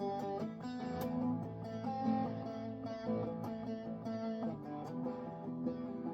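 Music Man Axis Sub electric guitar being played: picked notes and chords ringing out, with the chord changing every second or so.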